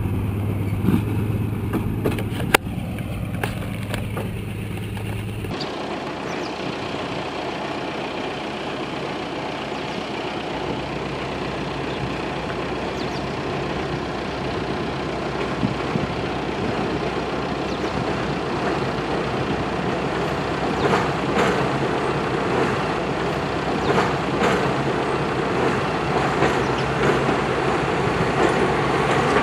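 A BDZ class 77 narrow-gauge diesel-hydraulic locomotive's engine running as it draws a train of coaches into the station, growing slowly louder as it nears, with a few sharp clicks from the wheels near the end. A steady low hum cuts off suddenly about five seconds in.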